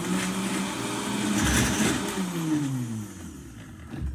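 Countertop blender motor running on a thick smoothie, then switched off about two seconds in, winding down with falling pitch. A knock near the end.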